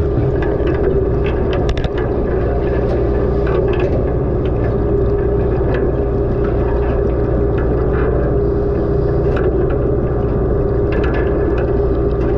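Steady underwater drone of the moored dive boat's machinery: a constant hum over a low rumble, dotted with faint irregular clicks.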